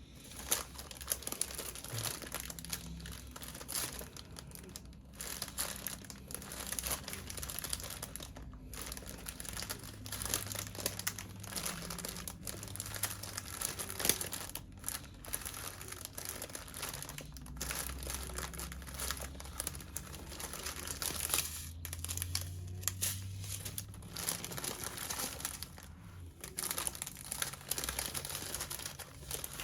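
Small plastic packets of diamond-painting drills crinkling as they are handled and sorted, on and off with brief pauses.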